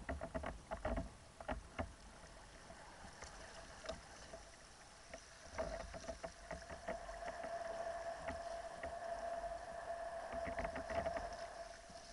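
Choppy water splashing and slapping against the hull of a sea kayak moving under sail, in irregular bursts. A steady hum comes in about halfway through and holds.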